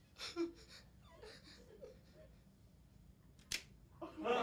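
A man's few soft sniffs and small vocal noises on a mostly quiet stage, a single sharp click about three and a half seconds in, then audience laughter swelling up just before the end.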